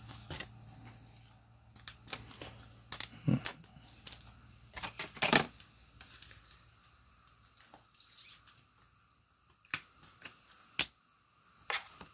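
Trading cards being handled: scattered rustles, light taps and clicks, a few of them sharper and louder.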